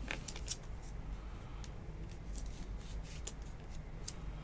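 Clear plastic trading-card holder being handled as a card is fitted into a 130-point holder: scattered faint clicks and light rubbing of hard plastic.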